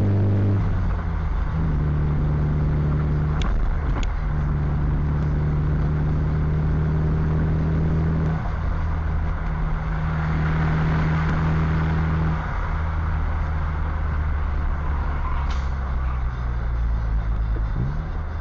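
Cabin noise of a car at highway speed: steady road and tyre noise with a low engine drone that shifts pitch a few times, and two faint clicks about three and a half and four seconds in.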